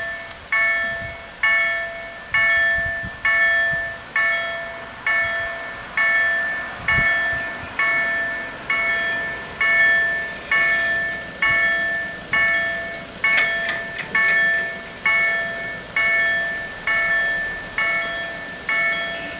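Level crossing warning bells ringing, struck evenly a little over once a second, each ring fading before the next. They warn of an approaching train while the barriers come down.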